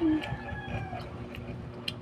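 A rooster crowing: the end of one long crow, loudest right at the start and fading out within the first second, followed by a few faint clicks.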